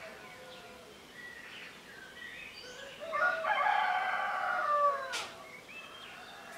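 A rooster crows once, about halfway through: a loud call of about two seconds that drops in pitch at the end, over small songbirds chirping and singing.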